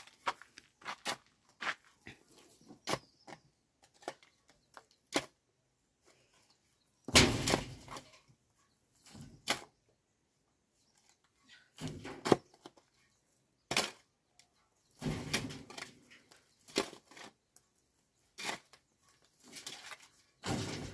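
Hand hoe chopping into stony red soil and scraping it loose. First a run of light clicks and knocks, then heavier strikes and scraping passes every second or two.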